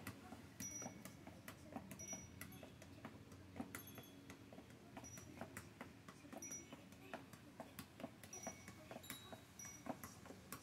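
Soccer ball being juggled: faint taps as it is kicked and kneed into the air, about two or three a second, with short high chirps over them.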